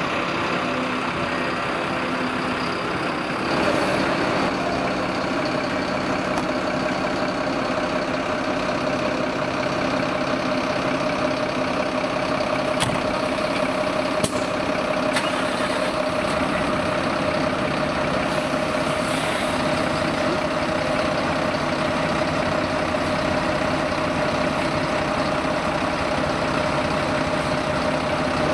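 Diesel engines of fire trucks idling steadily, with a constant hum over them and a couple of sharp clicks about halfway through.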